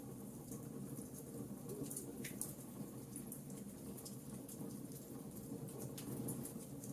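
Birch logs burning in a fireplace, crackling with scattered sharp pops over a steady low rush of flame.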